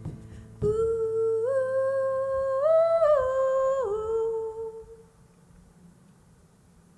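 A woman's voice humming a wordless melody in long held notes. The melody steps up in pitch a few times, comes back down and fades out about five seconds in. A single low strike sounds just as the humming begins.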